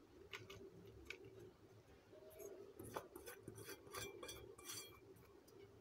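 Faint light clinks and scraping of a small glass bowl as chopped garlic is tipped and scraped out of it onto flour, busiest in the second half.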